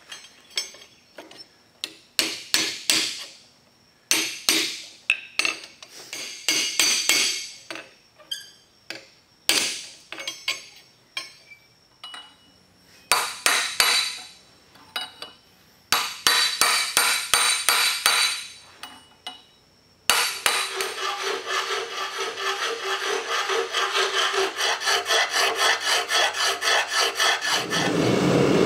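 Hand hammer striking hot steel on an anvil in bursts of sharp, ringing blows, then a faster, even run of about four blows a second. Just before the end the steady roar of a gas forge's burner comes in.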